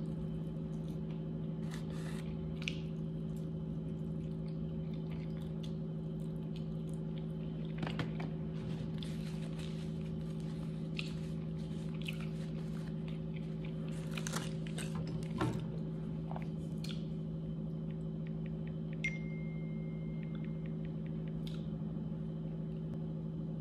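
Someone eating fried chicken wings close to the microphone: scattered crunchy bites and chewing over a steady low hum.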